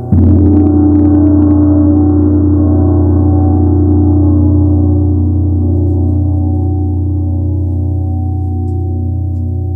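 Large Tibetan gong struck once with a soft round-headed mallet, opening with a brief bright shimmer and then ringing on as a deep hum with several steady overtones that fade slowly.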